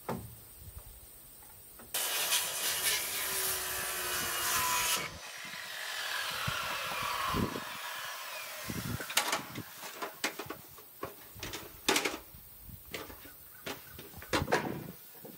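A power saw cutting through lumber for about three seconds, its whine falling away as the blade winds down. A string of sharp, uneven knocks follows.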